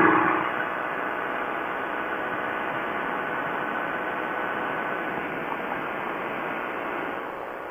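Quicksilver ultralight's engine running steadily in flight, blended with wind rushing over the open airframe and the camera microphone. The level drops slightly near the end.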